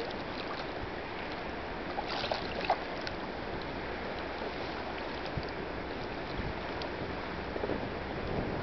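Steady rush of a shallow river flowing over stones around a wading angler, with a few short sharp sounds about two to three seconds in.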